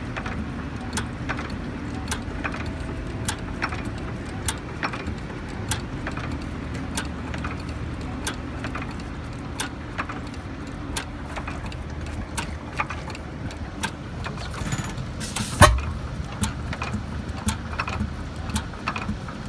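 Old hit-and-miss stationary engine running on its flywheels: a steady low drone with sharp regular clicks about one and a half times a second, and one loud bang about three-quarters of the way through.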